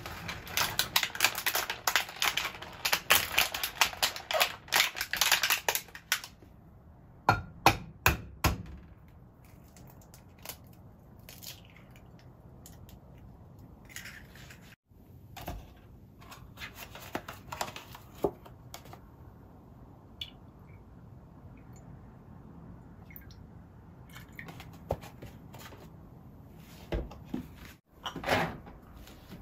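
Close kitchen food-prep handling sounds: a dense run of crackling and clicking for the first six seconds, then a few sharp knocks, then scattered quieter clinks and rustles as an egg and milk go into a glass dish.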